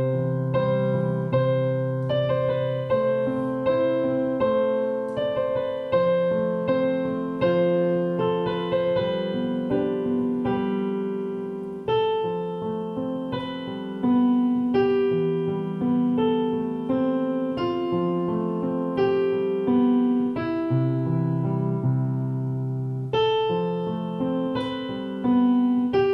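Digital piano played with both hands: a melody of single notes over lower notes in the left hand, each note struck and left to decay, at a steady, unhurried pace.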